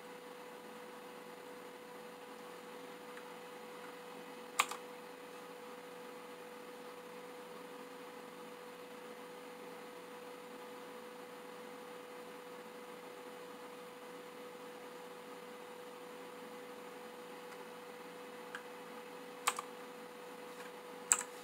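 Three single keystrokes on a Rizum Z15 mechanical keyboard with clicky optical blue switches, about five seconds in and twice near the end, each a sharp click with a softer second click right after, pressed to switch the backlight effect. A steady electrical hum and hiss lies underneath.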